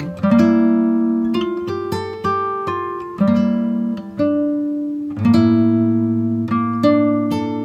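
Background music played on a plucked acoustic guitar: single notes and chords picked every half second to a second, each ringing on and fading.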